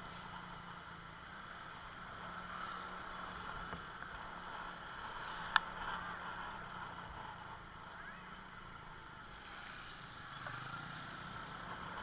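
Steady running noise of a motor scooter, with a single sharp click about halfway through.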